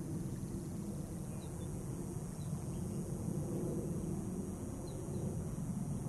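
Steady low rumbling outdoor background noise with a high hiss above it and a few faint short chirps from small birds.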